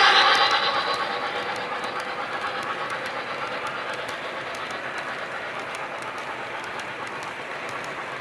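O-gauge model train running on the layout track: a steady rolling rumble with light regular clicks of the wheels over rail joints, slowly fading. In the first second the tail of a multi-tone whistle dies away.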